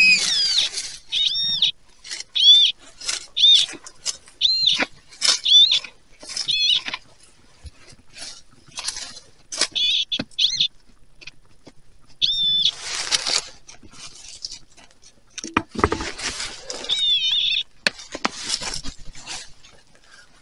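Metal-detecting pinpointer held to the soil, giving short high warbling beeps that rise and fall in pitch, about two a second at first and more sparsely later, which signal a buried metal target. Between the beeps come scrapes and rustles of dirt and dry leaves being moved.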